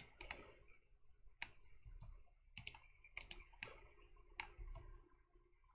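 Faint, irregular clicking of a computer mouse and keyboard, single clicks and quick pairs a second or so apart.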